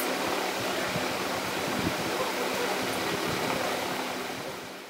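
A steady hiss of background noise with a faint low hum, fading away near the end.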